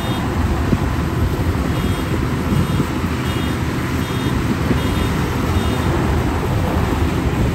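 Zoomlion FH100E rice combine harvester running steadily while cutting lodged rice. A short, high, two-tone electronic beep repeats about every 0.7 s through the middle.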